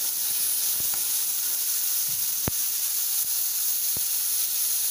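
Onion and chilli-powder masala sizzling steadily in hot oil in a metal kadai as it is stirred. A metal spoon clicks sharply against the pan twice, about halfway through and near the end.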